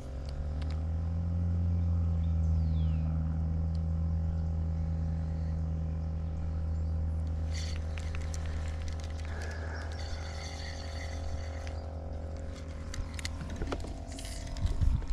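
Low, steady engine drone that swells within the first couple of seconds and then slowly fades away, with a sharp thump near the end.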